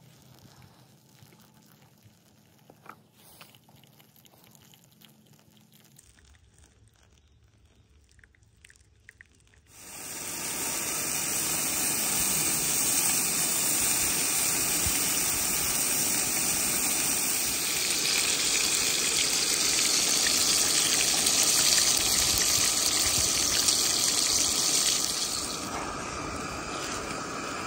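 Food sizzling in a frying pan on a small gas canister stove. After a nearly quiet start, sausage patties start sizzling loudly about ten seconds in, a steady hiss. Near the end it drops to a softer sizzle of eggs cooking.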